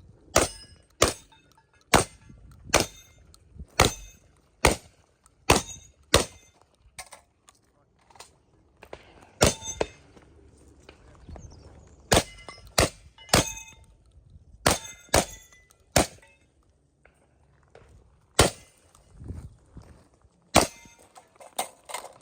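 Typhoon F12 semi-automatic shotgun firing a fast string of about twenty shots, often a little over half a second apart, each sharp report followed by a metallic ring. There is a pause of about two seconds near the end.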